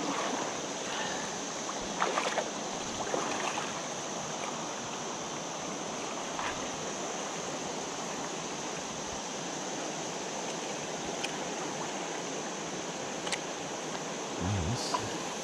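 River current running steadily over a rocky, shallow stretch, a continuous rushing of water, with a few brief knocks about two to three seconds in.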